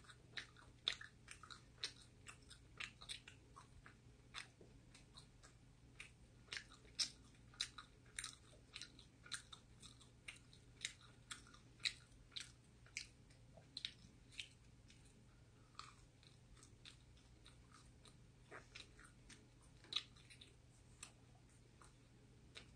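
Faint, close-up chewing of pizza crust: irregular crunchy clicks of biting and chewing, thinning out in the last few seconds.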